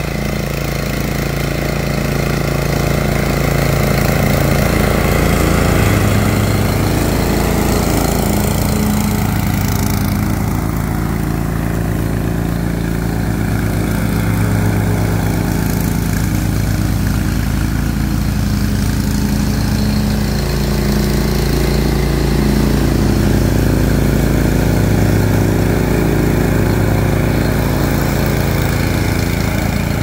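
Engine of a remote-controlled zero-turn lawn mower running steadily as the mower drives and mows, its pitch shifting slightly a few times.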